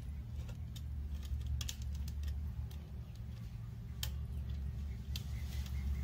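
Scattered light clicks and taps of hard plastic and wire as a PVC pipe is worked into the plastic hub of a fan's wire guard, over a steady low hum.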